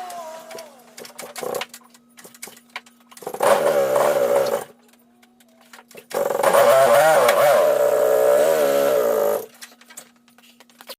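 Polaris 330 Trail Boss quad's single-cylinder engine running under throttle in two bursts, a short one about three seconds in and a longer one a little past the middle, its pitch wavering up and down; a faint steady hum and small clicks lie between them.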